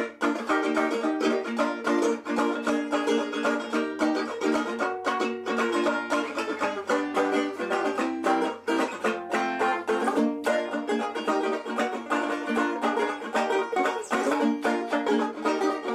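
A bandżola, a banjo, strummed in a lively tune with fast, closely repeated strokes.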